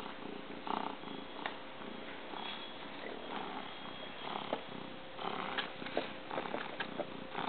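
Domestic cat purring steadily, close up, with a few light crinkles of packing paper as it shifts, mostly in the last couple of seconds.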